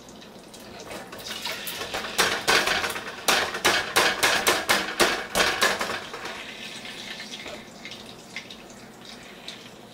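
Wet boiled potato wedges going into hot canola oil: a dense burst of sharp crackling and spitting with metal clinks from the wire strainer against the pot, lasting about five seconds, then dying down to a quieter, steady sizzle.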